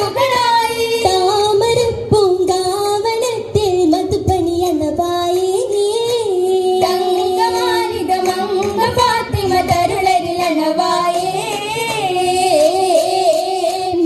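Girls' voices singing an oppana (Mappila song) melody together, with sharp hand claps scattered through it.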